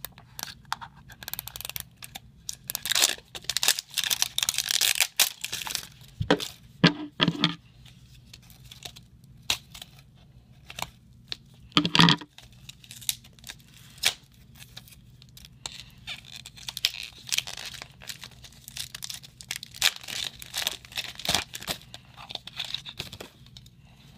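Toy blind bags being torn open and crinkled by hand: irregular bursts of tearing and crackling packaging, with a sharper knock about halfway through.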